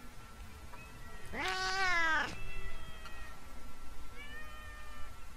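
Stray tomcats yowling at each other in a face-off: threat calls between rivals fighting over a female. One loud yowl about a second in rises and then falls in pitch, followed by quieter drawn-out yowls.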